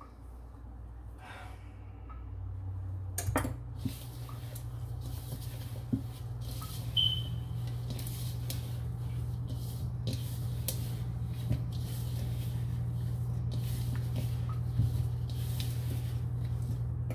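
Hands squeezing and kneading a crumbly flour, sugar and shortening paste in a plastic mixing bowl, with soft rustles and occasional light knocks against the bowl. A low steady hum comes up about three seconds in and carries on underneath.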